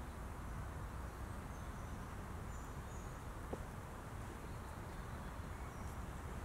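Steady outdoor woodland ambience: a low, even rumble with a few faint, short high chirps near the middle and one small click.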